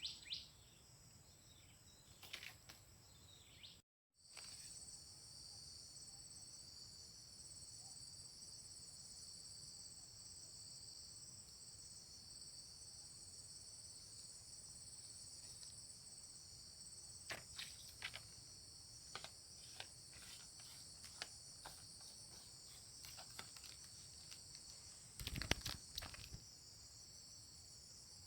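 A faint, steady chorus of high-pitched insects trilling, crickets or similar, which begins after a brief dropout about four seconds in. Scattered soft clicks and rustles come through from midway, with a louder cluster near the end.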